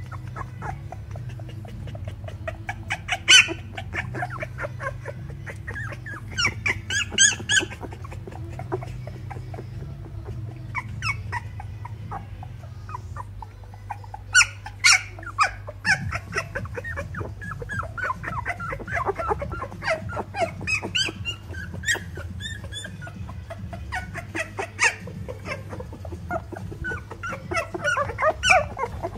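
Twelve-day-old Keeshond puppies whimpering and squeaking in short high-pitched bursts, on and off, over a steady low hum.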